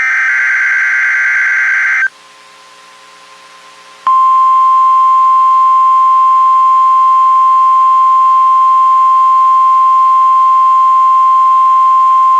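NOAA Weather Radio weekly test: a loud two-second screech of SAME digital header data, a two-second pause with only a faint hum, then the 1050 Hz weather warning alarm, one loud steady beep that starts about four seconds in and holds.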